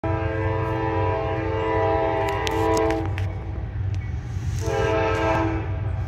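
Multi-chime horn of an approaching CSX locomotive: one long blast of about three seconds, then a shorter blast of about a second, over a steady low rumble.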